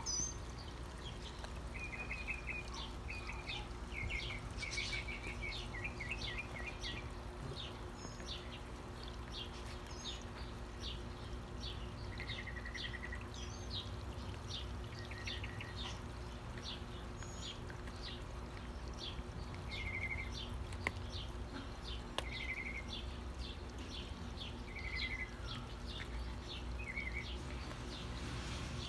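Small birds chirping all through, with short rapid trills every few seconds, over the steady pouring of a small garden fountain into its basin.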